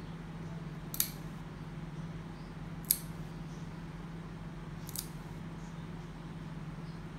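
Nail clipper snipping a cat's claws: three sharp clicks about two seconds apart, over a steady low hum.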